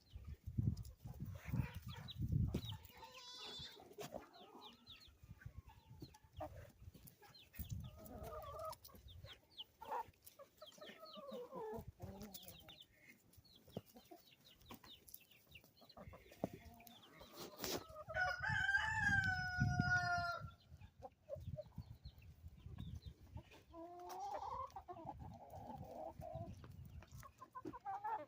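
Chickens clucking on and off, with one long rooster crow about two-thirds of the way through, the loudest sound here. Low thumps and rustling come and go underneath.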